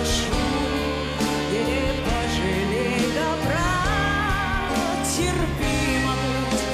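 A woman singing live with band accompaniment, her voice holding high, wavering notes with vibrato.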